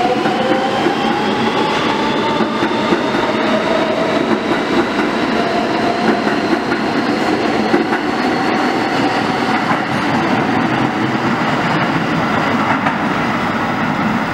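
New York City Subway R160 train accelerating out of the station, its traction motors giving a whine that slowly rises in pitch over a steady rumble of wheels on rail.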